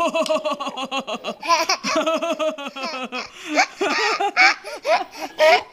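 Baby laughing hard: a long run of quick, bouncing belly-laugh pulses, then higher squealing laughs toward the end.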